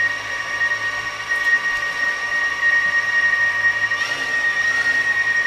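DJI Phantom 4 Pro quadcopter's four motors and propellers spinning at idle with the drone resting on the ground, a steady high-pitched whine.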